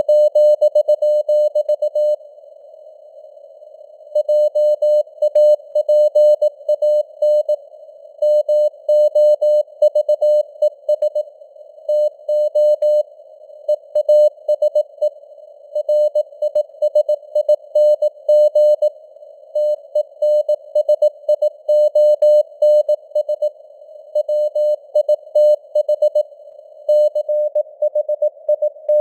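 Morse code at 18 words per minute: a single mid-pitched beep tone keyed on and off in dots and dashes, over a hiss of simulated radio band noise. There is a pause of about two seconds near the start between groups.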